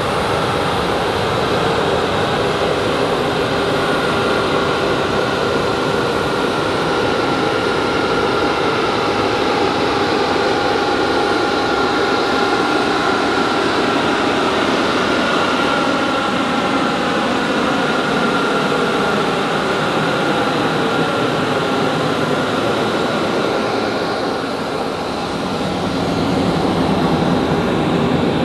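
Steady rushing roar of aircraft jet-turbine noise on an airport apron, with constant high whines over it. It dips briefly near the end, then comes back a little louder.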